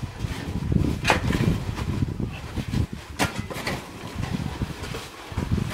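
Uneven low rumbling of wind on the microphone, with a few sharp cracks about one and three seconds in.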